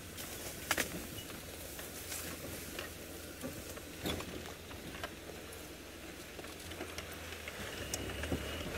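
Open safari vehicle's engine running low and steady as it drives slowly over a sandy bush track, with scattered sharp clicks and knocks, the loudest just under a second in and again about four seconds in.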